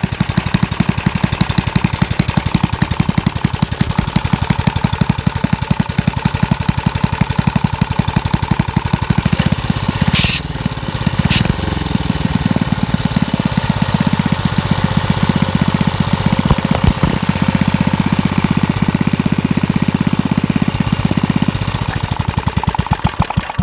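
Bolens garden tractor's single-cylinder Briggs & Stratton engine running steadily on the bench with even firing pulses. About ten seconds in, two sharp clicks come and the engine speed wavers briefly as the carburetor is being adjusted. Its owner judges it to be running well.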